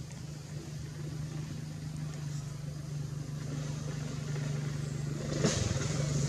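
A motor vehicle's engine humming steadily and growing gradually louder, with a sharp click about five and a half seconds in.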